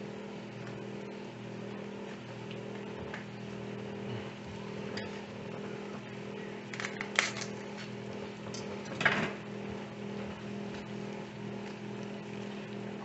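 Taco-seasoned ground beef simmering in a frying pan, a soft steady sizzle over a low steady hum, with two brief louder crackles about seven and nine seconds in.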